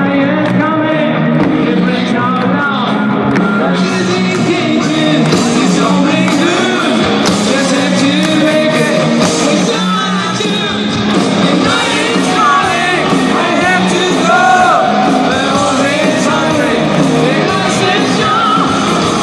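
A rock band playing live, with singing and some yelling over loud, continuous music.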